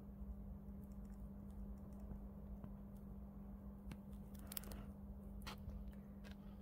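Quiet room tone: a steady low hum with a scatter of faint small clicks and a brief soft rustle about four and a half seconds in.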